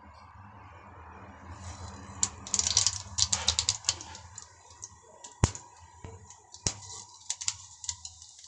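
Mustard seeds crackling and popping in hot oil in a kadai during tempering, as a rapid irregular patter of sharp pops that starts about a second and a half in and thins out, with one louder click a little past halfway. A low steady hum runs underneath.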